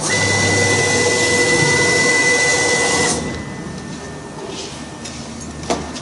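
CNC router spindle drilling into aluminium: a loud steady whine with a hissing cutting noise that drops away about three seconds in, leaving a fainter whine. A short sharp click near the end.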